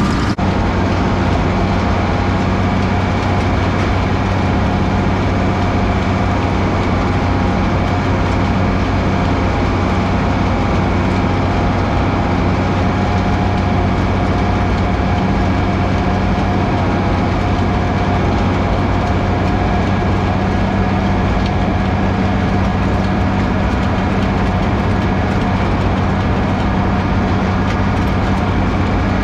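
Tractor running a Kelly Ryan silage bagger under load, its rotor packing chopped oats and peas into a silage bag. The engine and machinery run loud and steady with no change.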